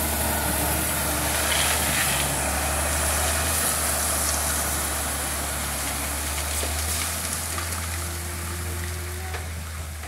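Dump truck's diesel engine running steadily while a load of gravel slides out of the raised bed, a continuous gritty noise over the engine hum that slowly dies down toward the end.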